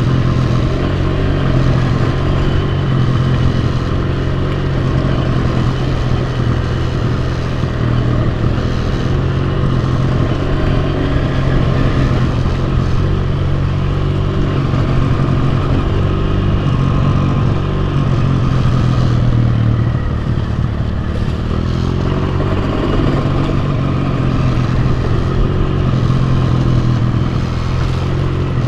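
Enduro motorcycle engine running steadily under way, its pitch shifting a little with the throttle.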